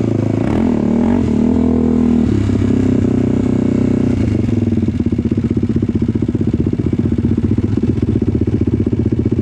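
ATV engine running while riding a dirt trail, its pitch rising and falling with the throttle in the first couple of seconds, then settling into an even, pulsing low-speed run about five seconds in.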